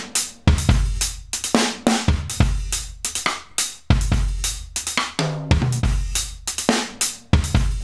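Live drum kit loop at 140 bpm, with kick, snare and cymbals hitting in a steady rhythm. It plays back through a software compressor set to moderate compression at a ratio of 3, which gives a natural-sounding attack.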